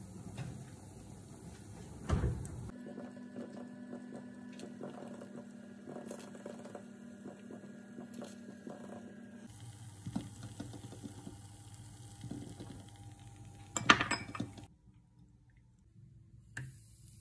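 Spring rolls shallow-frying in oil in a ceramic frying pan, with a fine steady crackle, as chopsticks lift them out and clink against the pan and a ceramic bowl. A steady hum sits under the middle part, and there is a sharp knock near the end.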